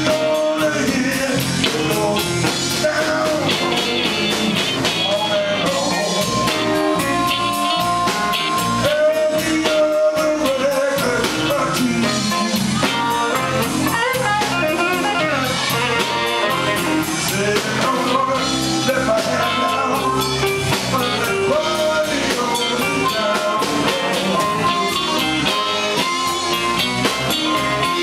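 Live electric blues band playing an instrumental stretch: bass guitar, drum kit and electric guitars, with an amplified blues harmonica playing held, bending notes over them.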